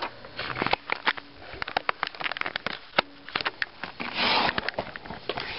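Handling noise: scattered light clicks and knocks of a hand and camera moving about a laptop, with a short rushing noise about four seconds in.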